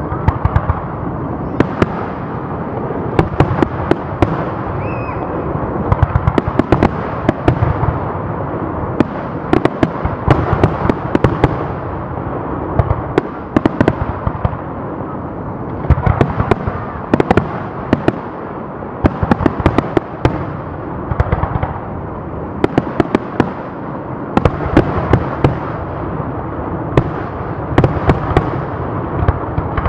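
Fireworks display: aerial shells bursting in quick volleys of sharp bangs and crackle over a continuous rumble, the reports bunching into clusters every few seconds.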